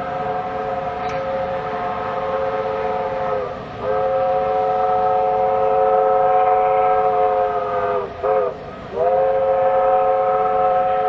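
Steam locomotive's chime whistle sounding the grade-crossing signal, heard as the end of a long blast, a second long blast, a short blast and then a long blast. Each blast is a steady chord of several notes that sags in pitch as it ends.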